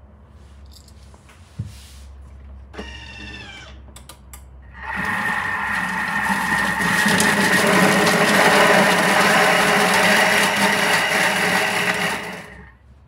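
Food processor running a pesto mix of rocket and pine nuts: after a click and a brief whir, the motor starts about five seconds in, runs steadily for about eight seconds, and stops near the end.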